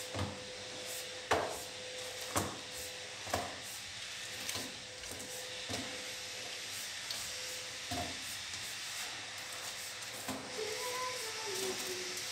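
Grocery packages and bottles handled and set down on a wooden tabletop: a series of sharp knocks, roughly one a second for the first eight seconds, with rubbing and rustling of packaging between them.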